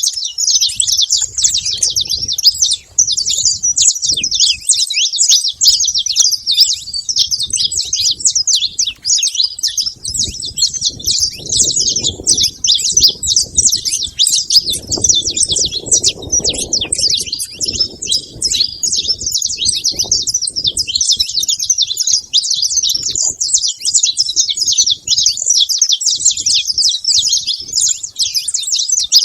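A flock of saffron finches chirping and singing in a dense, unbroken chatter of rapid high notes, many birds at once, over a faint low rumble.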